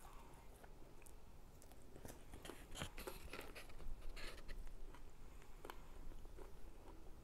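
Faint close-up chewing of a mouthful of crispy ginger beef with the lips closed: soft wet mouth clicks and small crunches, a few more of them around the middle.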